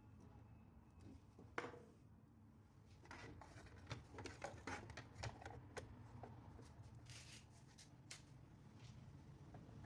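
Faint light clicks and taps over a low steady hum, with one sharper click early and a busier run of clicks from about three to six seconds in.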